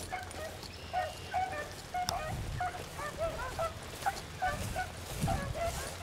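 Beagles baying on a rabbit track: quick, short, honking calls several times a second, from more than one hound, overlapping at slightly different pitches.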